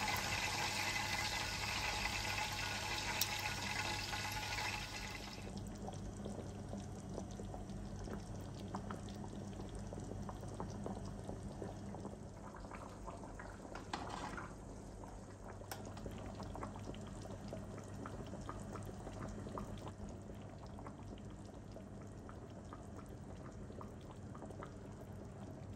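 Chicken legs simmering in tomato sauce in a frying pan: a steady sizzling hiss for about the first five seconds, then quieter bubbling with small pops. Around the middle, saffron water is poured from a glass over the chicken.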